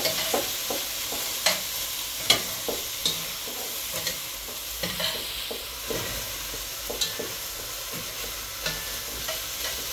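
Diced chicken sizzling as it fries in a pot, with a metal spoon stirring it and scraping and clinking against the pot every second or so.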